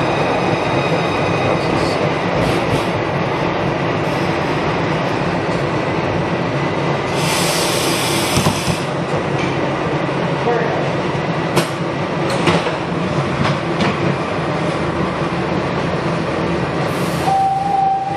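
SEPTA Broad Street Line subway train heard from inside the car, a steady rumble of running noise. About seven seconds in there is a hiss lasting about a second and a half, followed by a few sharp clicks, and a short steady tone sounds near the end.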